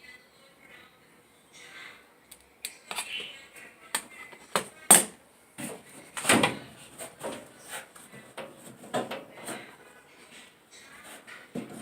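Irregular knocks, clicks and rattles of dryer parts and tools being handled while the dryer is taken apart, with two louder knocks about five and six seconds in. The dryer is not running.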